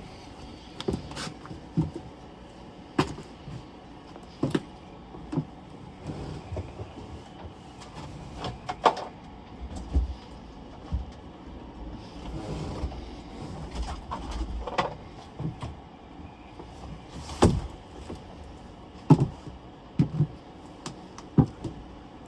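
Irregular clinks and knocks of hand tools and small metal parts, with short scraping and sliding sounds between them, spaced a second or more apart.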